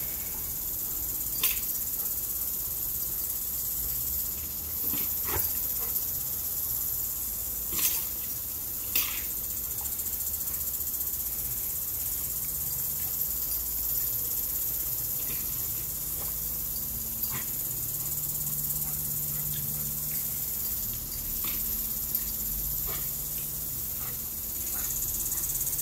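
Steady high-pitched insect drone, with a lawn sprinkler spraying water and a few short sharp sounds scattered through.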